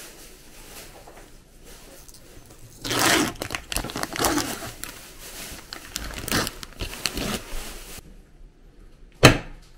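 Packaging being handled: crinkling and tearing, louder in two stretches, then one sharp click near the end.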